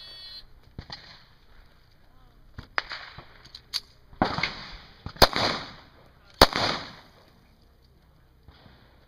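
Scattered single gunshots on a shooting range, a few faint ones early and two loud ones about five and six and a half seconds in, each followed by a ringing echo.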